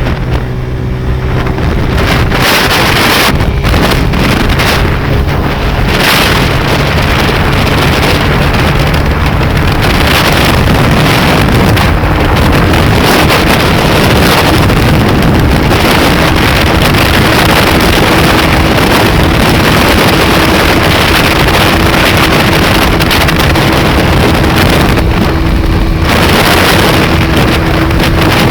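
Yamaha YBR Factor's single-cylinder four-stroke engine running hard at high revs on a top-speed run, through an aftermarket Papa-Léguas exhaust with a carburettor tuned for speed, under heavy wind rush on the microphone. The sound is loud and steady, building over the first couple of seconds.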